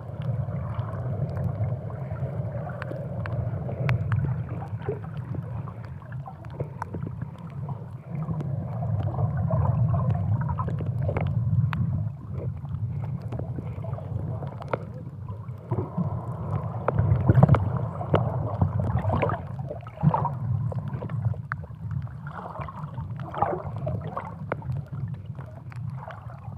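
Muffled underwater noise: a steady low water rumble with scattered small clicks and gurgles, as picked up by a camera under the sea.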